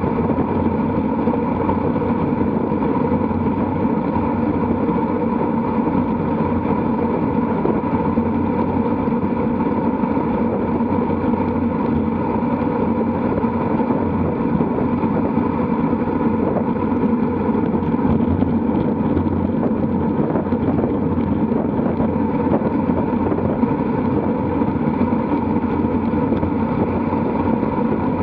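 Steady rush of wind over the microphone of a camera mounted on a road bicycle riding in a pack at about 45 to 50 km/h, with the hum of the tyres rolling on the tarmac.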